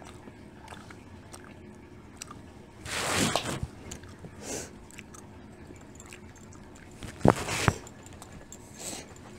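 Eating sounds: snow crab legs being cracked and picked apart by hand, with small clicks of shell and chewing, and two louder crunches, one about three seconds in and one about seven seconds in.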